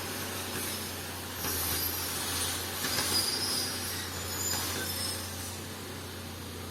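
Diesel engine of a heavy earthmoving machine running steadily, with metal squealing and scraping, loudest in the middle.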